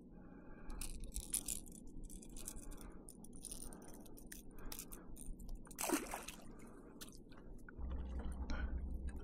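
Scattered small clicks, taps and rustles of fishing tackle being handled in a kayak, with one sharper swishing sound that falls in pitch about six seconds in. A low rumble starts near the end.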